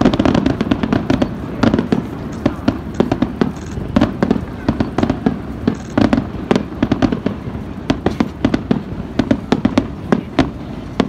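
A dense barrage of aerial firework shells bursting, with many sharp bangs a second in quick, overlapping succession and no let-up.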